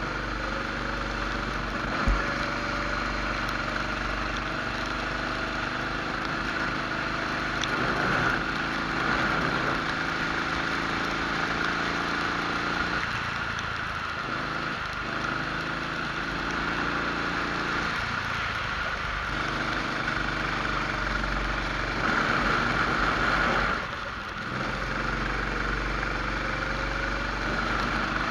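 Rental kart engine running in a race, its pitch rising and falling as the driver comes off the throttle and accelerates again, over a steady hiss. A single sharp knock comes about two seconds in. Near the end the engine is briefly louder, then dips as the driver lifts.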